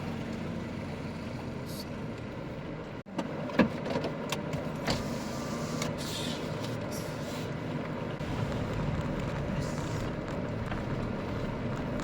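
A car running at low speed: steady engine and road rumble, with scattered sharp clicks and knocks, the loudest about three and a half seconds in.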